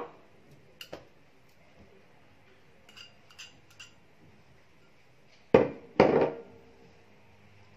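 Kitchenware knocking together while butter is put into a mixing bowl: a few faint ticks, then two sharp clinks about half a second apart a little past halfway, each with a brief ring.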